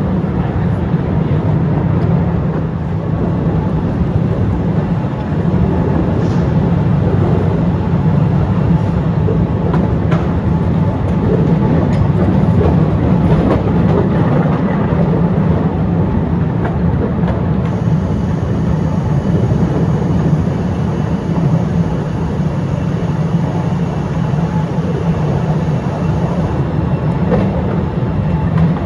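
Postojna Cave's tourist train running on its track, heard from aboard an open car: a steady, loud running noise with light clicks from the wheels.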